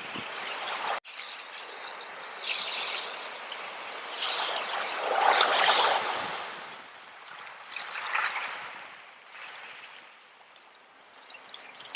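Seawater washing over seashells and draining back, swelling loudest about five seconds in and again around eight seconds, with a brief break about a second in.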